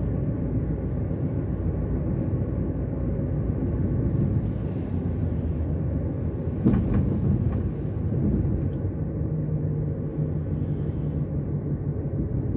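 Road and engine noise of a car being driven through town, heard from inside the cabin: a steady low rumble, with a short knock about halfway through and a steadier engine note for a few seconds after it.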